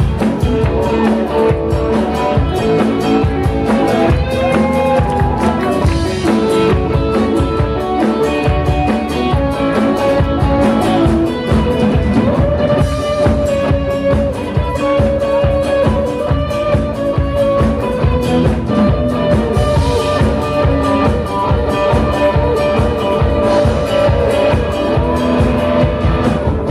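Live rock band playing: electric guitars over bass and a drum kit keeping a steady beat.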